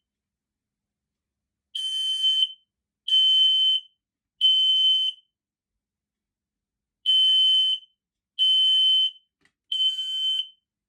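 Smoke alarm sounding during a manual test. It gives its fire-warning pattern of high-pitched beeps in threes, each beep a little under a second long, with a pause of about two seconds between groups. Two groups of three are heard.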